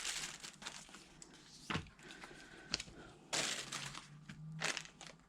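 Unboxing packaging being handled: a sharp click a little under two seconds in, then crinkling and rustling of paper and plastic wrapping with a few light knocks.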